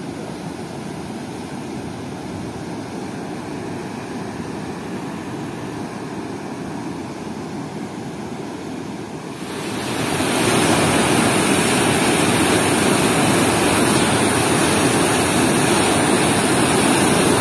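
Steady rush of river water, which grows much louder and brighter about ten seconds in.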